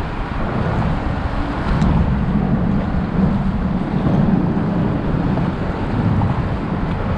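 Steady low rumble of wind buffeting the microphone, over water moving around the boat.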